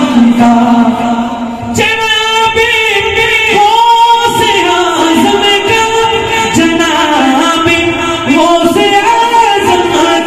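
A man singing a naat, an Islamic devotional song, into a microphone: a melismatic melody with long held notes.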